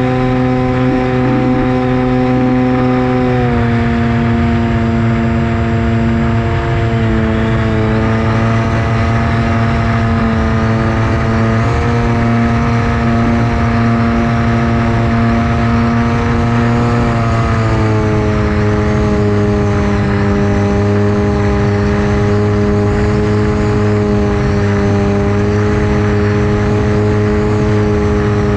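Electric motor and propeller of a Versa Wing FPV flying wing running steadily in flight, with a rush of air noise. The pitch steps down about three seconds in and again about two-thirds of the way through as the throttle is eased.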